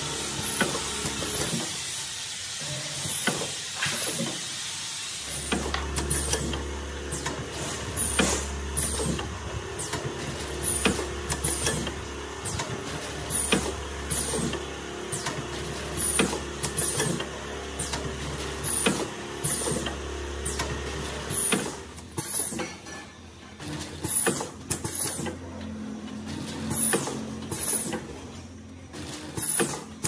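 Multi-lane sachet packing machine running: its sealing and cutting jaws clack in a steady rhythm about once a second over a continuous mechanical hum. A low hum comes in about five seconds in and drops out about twenty-one seconds in.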